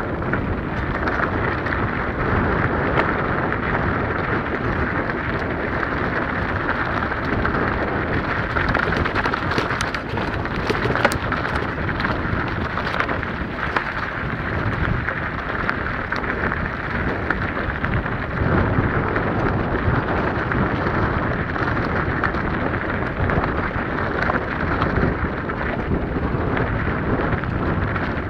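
Mountain bike riding over loose, stony singletrack, heard from an onboard camera: a steady noisy rush of tyres rolling and crunching on gravel, with scattered rattles and knocks from the bike and camera mount.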